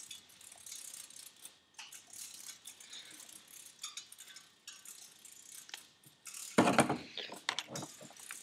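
Light metallic clicking and rattling of a turbocharger journal bearing being spun by finger and handled in its bearing housing, with a louder clunk about six and a half seconds in.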